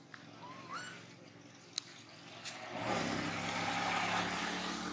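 A motor vehicle running nearby: its engine hum and road noise swell up about three seconds in and stay loud. Before that come a couple of sharp clicks and a short rising squeak.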